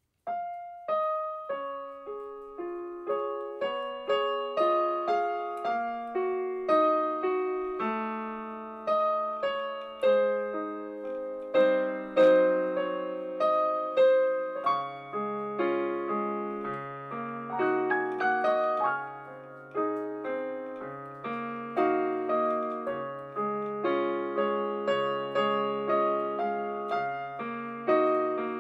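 Solo digital piano playing a song arrangement: a melody over chords, each note struck and fading, with a lower bass line joining about halfway through.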